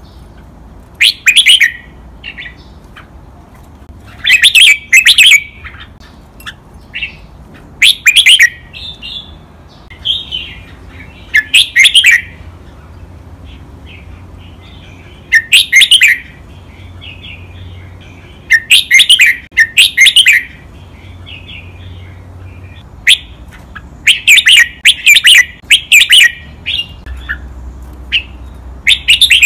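Red-whiskered bulbul singing loud, clear song phrases every two to four seconds, several given twice in quick succession.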